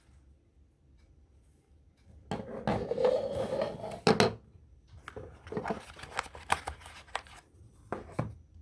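Hands handling the phone's box and packaging: about two seconds of rustling with a few sharp clicks, then scattered light clicks and taps.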